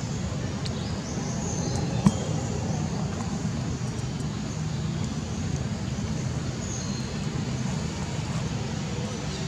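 Steady low rumbling background noise with no clear source, and a single sharp click about two seconds in.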